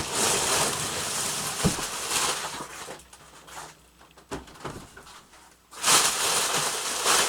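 Packing in a shipping box being handled: plastic air pillows and cardboard rustling and crinkling, with a quieter gap in the middle and a few light knocks.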